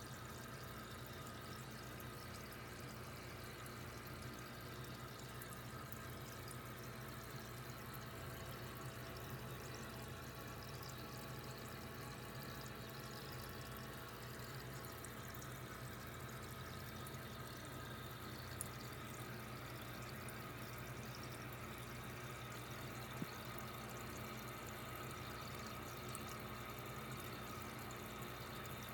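Aquarium filtration: water trickling and bubbling steadily with a low, steady hum under it, and two faint clicks in the second half.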